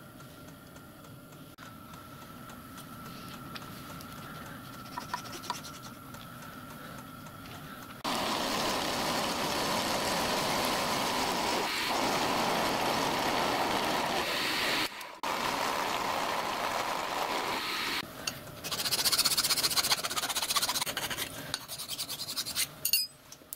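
A milling machine runs with a faint steady whine. From about eight seconds in, an end mill cuts slots in a bronze slide-valve blank, making a loud dense scraping hiss that continues with a couple of short breaks.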